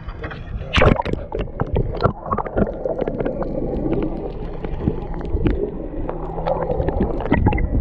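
Muffled water sloshing and gurgling heard from a camera held underwater beside a boat, with many small knocks and a louder splash about a second in as it goes under.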